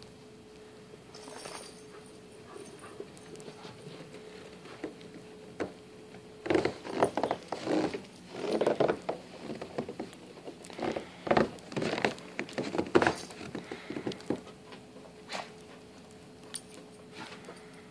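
Footsteps crunching on snow-covered wooden deck steps: a run of irregular crunches for about seven seconds in the middle, fainter before and after.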